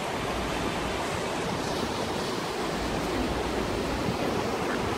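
A steady rushing noise.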